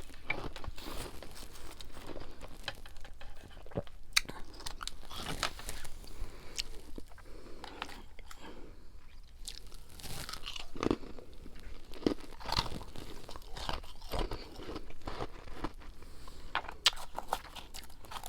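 Freezer frost being chewed: irregular crisp crunches with softer chewing between them.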